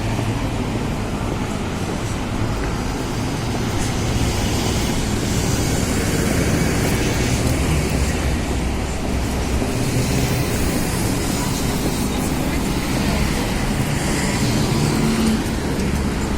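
Steady city street traffic noise: cars passing along the road.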